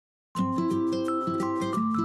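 Bright, upbeat music starts about a third of a second in, with pitched notes over a quick, even beat.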